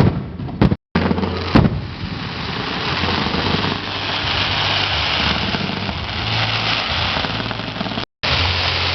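Fireworks going off: three sharp bangs in the first two seconds, then a steady, dense hiss of sound with a low steady hum underneath.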